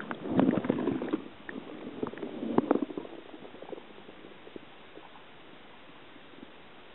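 Underwater sound from a submerged camera: muffled water rumbling with scattered clicks for about three seconds, then a steady faint hiss.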